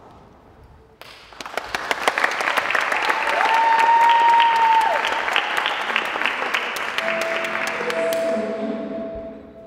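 Audience applauding and cheering, breaking out suddenly about a second in, with one loud whistle in the middle; the clapping fades near the end as a held musical note comes in.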